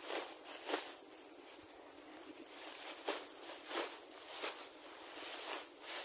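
Tall grass being cut and pulled by hand: irregular crisp swishes and rustles of stalks, with a quieter stretch between them about a second in.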